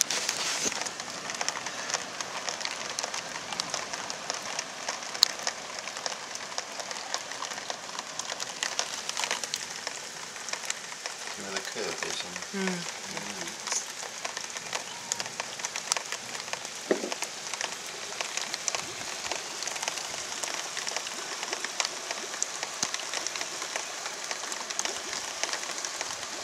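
Heavy rain falling and pattering on surfaces: a steady hiss full of tiny drop ticks.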